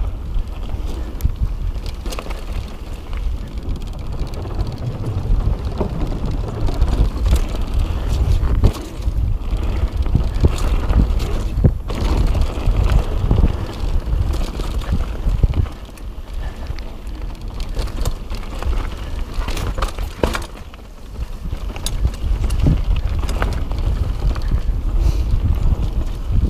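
Kona Process mountain bike descending a dirt singletrack at speed: a steady low rumble of wind on the microphone and tyres on the dirt, broken by frequent sharp knocks and rattles as the bike hits roots and bumps. The rumble eases briefly twice in the second half.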